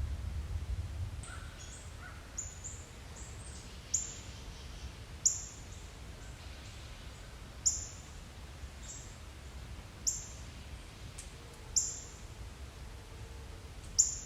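Short, very high chirps from a small animal, repeated every one to two and a half seconds, each a quick downward note; they are faint at first and louder from about four seconds in. A steady low rumble lies underneath.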